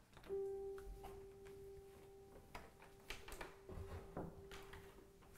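Quiet film score: a single soft keyboard note comes in just after the start and is held steady, over faint small clicks and rustles.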